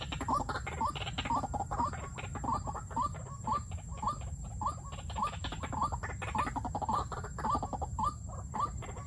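White-breasted waterhen calling: a steady run of short, upturned notes, about two to two and a half a second, the repetitive call used by a caged decoy bird to lure a wild one.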